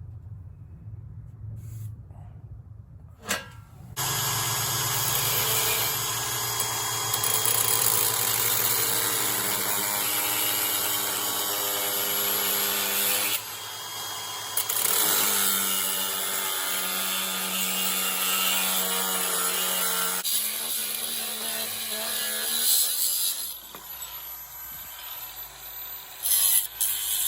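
Electric grinder working steel: a high motor whine over harsh grinding noise, starting about four seconds in, with a one-second break near the middle, then easing off to a lighter grind before stopping. A low steady hum runs underneath at the start.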